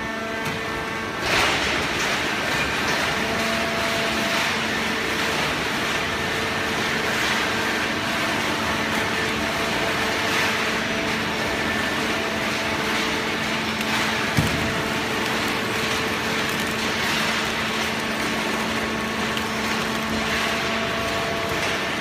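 Horizontal hydraulic baler for shredded paper and cardboard running, its hydraulic power unit giving a steady hum over loud mechanical noise. There is a brief swell about a second in and a single sharp knock near the middle.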